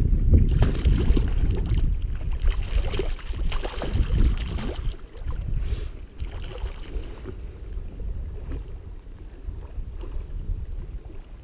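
Water splashing and sloshing close beside an inflatable float raft, heaviest in the first five seconds and quieter after, over wind rumbling on the microphone.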